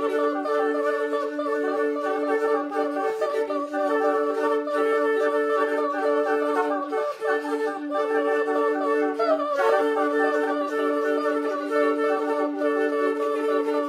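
Two flutes with soprano and countertenor voices holding long, overlapping sustained notes in close harmony. The tones drop out and re-enter at different moments, and one slides down in pitch about nine and a half seconds in.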